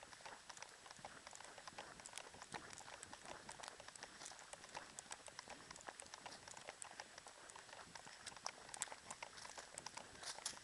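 Running footsteps of a trail runner's shoes on a dirt forest path: a quick, faint, irregular patter of crunching ticks over a low hiss.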